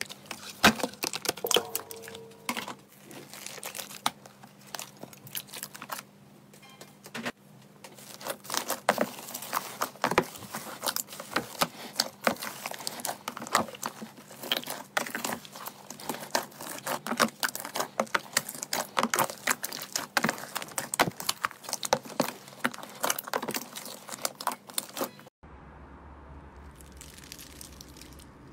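Hands kneading and squeezing thick slime, making a dense, irregular run of sticky crackling and popping clicks. About 25 seconds in, this cuts off abruptly into a quieter stretch with a low, steady hum underneath.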